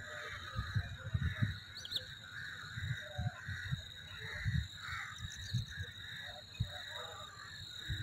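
Birds calling over and over, with a steady high-pitched hum behind them. Irregular low rumbles on the microphone are the loudest sounds.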